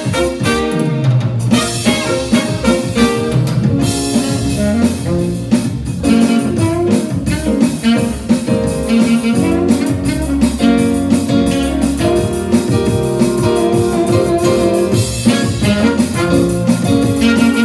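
Live jazz-blues band playing an instrumental passage: trumpet and saxophone playing over keyboard and drum kit, with a steady beat.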